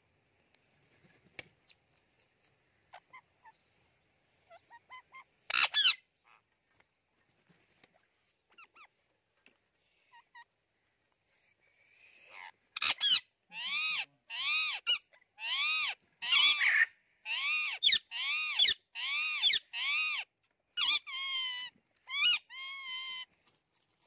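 Indian ringneck parakeets squabbling: one loud, harsh squawk about six seconds in, then from about halfway a rapid run of a dozen or so harsh squawks, roughly two a second. A few faint clicks come before.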